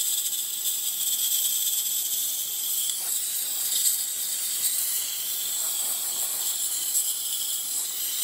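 DeLonghi Magnifica XS espresso machine's steam wand letting out a steady, loud hiss of steam, which shifts slightly about three seconds in. Steam is flowing freely now that a piece of plastic blocking the steamer has been removed.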